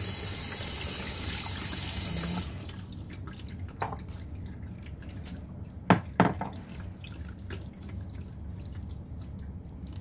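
Kitchen tap running into a plastic bowl of washed cabbage leaves in a stainless steel sink, cut off suddenly about two and a half seconds in. After that come dripping and small clicks of wet leaves being handled, with two sharp knocks about six seconds in.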